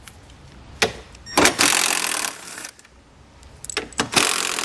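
Cordless power drill/driver running in two short bursts, each about a second long, backing out the fasteners along the top edge of a car's front fascia, with a few clicks of the tool being handled and set against the parts.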